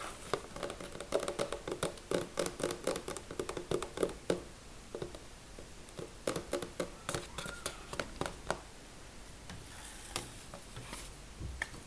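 Close-miked ASMR tapping and scratching on an object by hand: a rapid run of light taps, dense in the first half and sparser toward the end.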